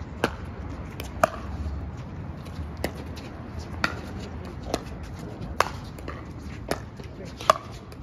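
Pickleball rally: a hard plastic ball popping off paddles and the court, about nine sharp pops spaced roughly a second apart.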